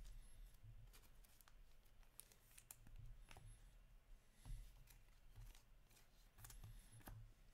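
Near silence with faint, scattered light clicks and rustles of hockey trading cards being handled and laid onto stacks on a wooden table.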